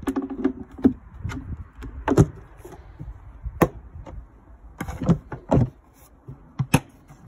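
Irregular handling knocks and sharp clicks, about a dozen spread through a few seconds, from the plastic cowling of a Mercury 15hp four-stroke outboard being handled and seated, with a short creak at the start. The engine is not running.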